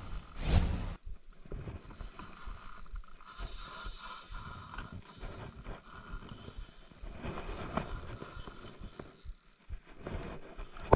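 Daiwa BG RR LT 4000 spinning reel being cranked, its gears whirring with fine rapid clicking as line is wound in. A loud rush of noise fills the first second.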